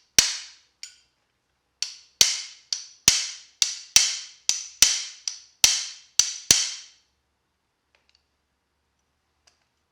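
Hammer tapping a new knurled pin into a steel 1971 Camaro door hinge: about fourteen sharp metallic strikes over roughly seven seconds, each ringing briefly with a high ping.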